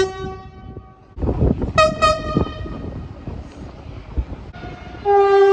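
Train horn sounding: a horn tone dies away in the first second, two short toots come about two seconds in over the rumble of a train, and a loud, long horn blast starts near the end.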